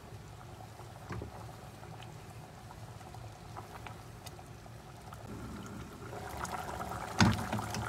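Thick cornstarch-thickened palabok sauce simmering and bubbling in a saucepan while a wooden spoon stirs and scrapes it, with small clicks. Near the end comes one sharp knock as the glass lid is set on the pot.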